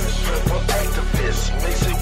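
Hip hop music: a beat with deep bass and repeated drum hits.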